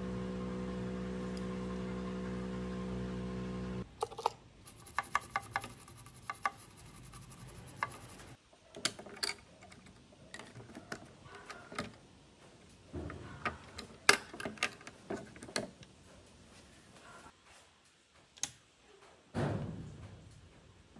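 Background music holding a steady chord cuts off abruptly about four seconds in. Then come scattered light clicks and taps of hands and metal tools working on a computer motherboard and fitting a CPU into its socket, with one sharper click in the middle and a duller knock near the end.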